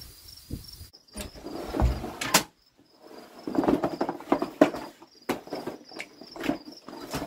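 Several sharp knocks and rattling as a small wheeled electric pressure washer is rolled across a deck and bumped over a door threshold, with a steady high chirping in the background.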